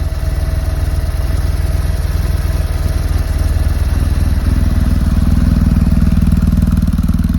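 BMW R1100S 1085 cc air/oil-cooled boxer twin idling through a Yoshimura titanium slip-on silencer: a steady, low, pulsing exhaust beat that gets slightly louder and fuller about four and a half seconds in.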